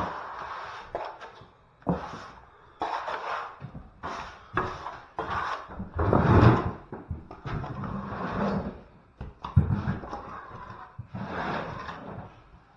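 Steel plastering trowel spreading wet skim plaster onto plasterboard and beads: a run of short scraping strokes, one after another, with a heavier thump about halfway through.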